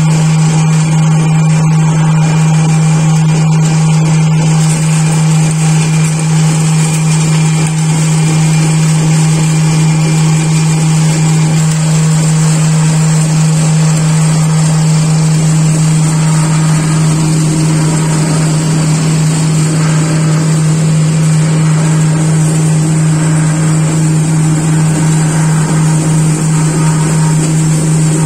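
Electric pulverizer mill running steadily with a loud, even hum, grinding dried turmeric slices into powder.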